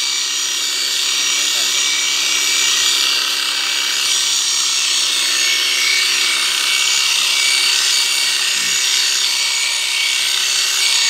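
ST-777 650 W electric shearing clipper running steadily as its cutter blades shear through an animal's fleece: a constant, high-pitched whirring buzz.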